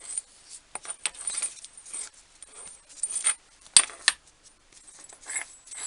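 Small steel blocks for lining up and raising work on a milling machine clinking and knocking together as they are handled, a scatter of sharp metallic clicks with a bright ring, the loudest about four seconds in.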